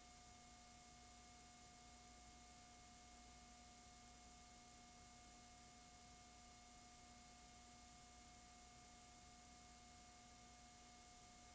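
Near silence: faint steady hiss with a low hum and a few thin steady tones, unchanging throughout, as from a blank stretch of videotape playing.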